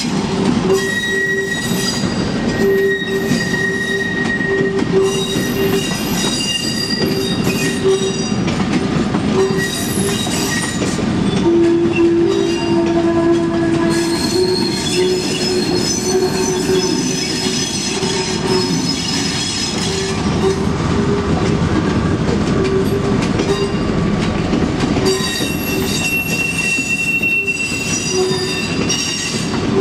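Railway coaches and wagons rolling slowly over the track, with their wheels squealing steadily on the rails under a constant rolling rumble. The squeal shifts in pitch and comes and goes as the cars pass.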